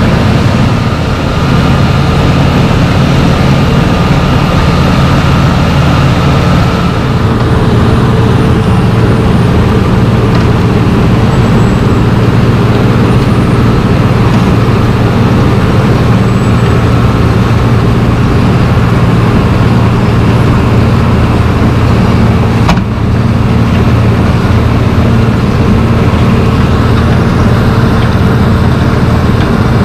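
Steady, loud running of heavy diesel road-construction machinery: a Wirtgen W1200F cold asphalt milling machine at work loading a dump truck, with a mini excavator working alongside. A single sharp click about 23 seconds in.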